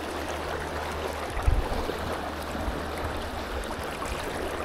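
Shallow creek water running over a rocky riffle, a steady rushing, with a brief low thump about a second and a half in.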